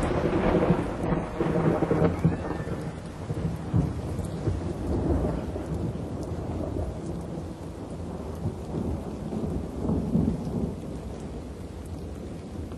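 Thunderstorm sound effect: steady rain with low rolls of thunder swelling several times, slowly fading out.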